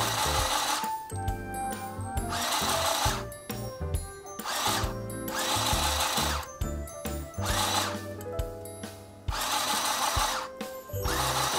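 Mini electric sewing machine's small motor running in short bursts of about a second, six or so times, as its foot pedal is pressed and released.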